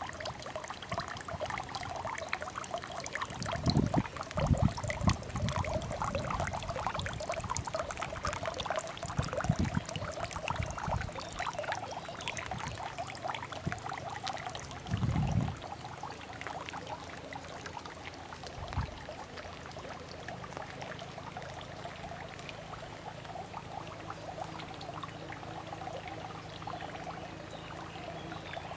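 Water of a small garden waterfall splashing steadily into a pond. A few short, dull low thumps are heard at intervals in the first two-thirds.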